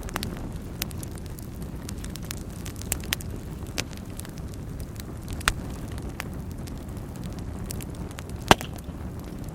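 Fire burning in a fireplace: a steady low rumble of flames with scattered sharp crackles and pops, the loudest pop a little past eight seconds in.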